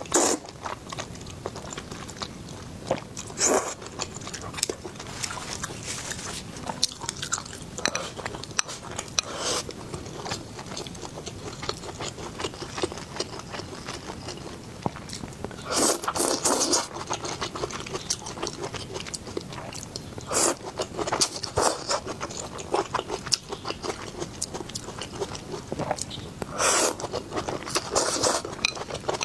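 A person biting and chewing crunchy food close to the microphone: irregular crunches and clicks, with louder bursts of crunching about halfway through and again near the end.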